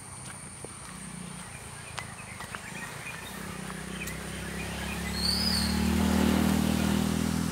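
A motor vehicle's engine drawing near, a low hum that grows louder through the second half and peaks about six seconds in. A bird chirps briefly about five seconds in, over a faint steady high whine.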